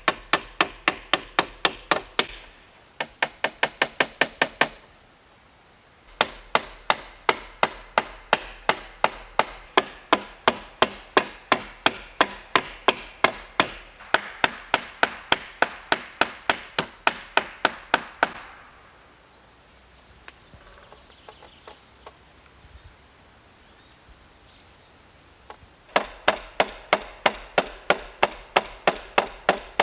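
Quick, evenly spaced chopping strikes of a tool on wood, about four a second, in several runs broken by pauses, with a longer pause near the middle holding only faint small knocks.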